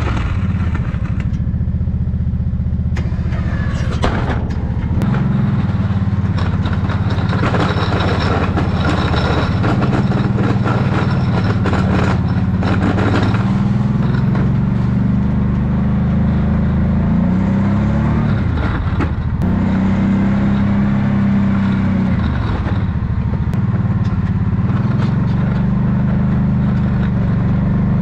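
Kawasaki Brute Force 750i ATV's V-twin engine running under load as the front plow blade pushes snow, its note rising and falling repeatedly with the throttle.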